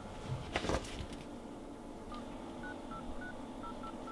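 Phone keypad tones: about seven short beeps of slightly different pitch as a number is dialled, starting about halfway in. A couple of soft knocks come shortly after the start.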